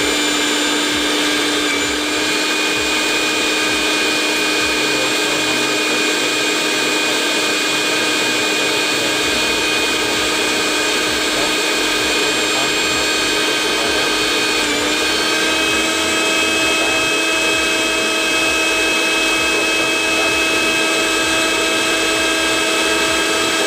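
Front-load washing machine wash motor, wired straight to the mains through its capacitor for a test, running with a steady electric whine. About fifteen seconds in the pitch dips briefly, then settles slightly higher and runs steadily on.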